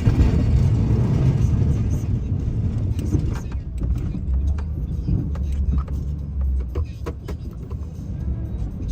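Snowplow truck running: a steady low rumble, with a louder rush of noise in the first couple of seconds and scattered clicks and knocks.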